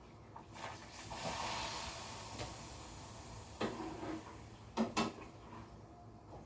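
Pappadam sizzling in hot oil: a hiss that swells up a second or so in and then dies away, followed by a few sharp clinks of a utensil against the pan.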